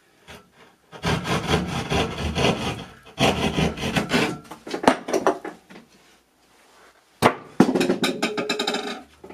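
Hand drywall saw cutting a round can-light hole through ceiling drywall: quick back-and-forth rasping strokes in two long runs. After a short pause there is a sharp click, then a little more scraping near the end.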